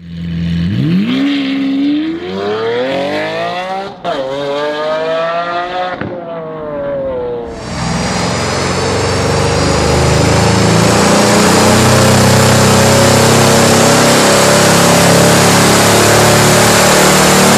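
Mercedes-AMG E63 S 5.5-litre twin-turbo V8 through a Capristo exhaust on a chassis dyno, revving with rising pitch that drops sharply twice, near 4 s and 6 s, as it shifts up, then falls away. From about 8 s a loud, steady rushing noise of the wheels spinning the dyno rollers at high speed covers the engine, which keeps running under load.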